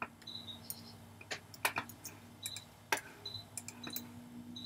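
Scattered sharp clicks of a computer mouse and keyboard, the loudest ones between about one and three seconds in, over a faint steady hum.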